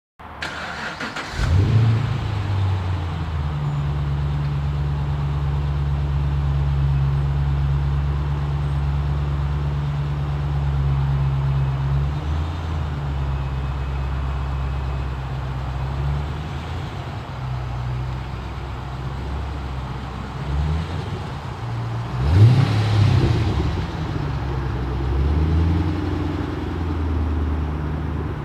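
A car engine cranks and starts, flares up briefly, then settles into a steady idle; about 22 seconds in it is revved once, the pitch rising and falling back to idle.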